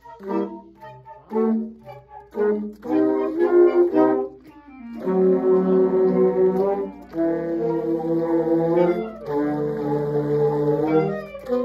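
Saxophones playing a duet: short detached notes at first, then longer held notes from about five seconds in.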